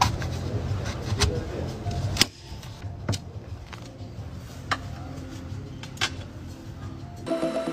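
Background music whose low bass drops away about two seconds in, leaving a thinner backing with a few sharp clicks. A different music track starts near the end.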